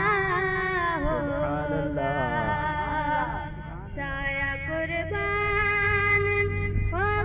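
A boy singing a naat into a microphone, his voice winding through ornamented turns and then holding long steady notes.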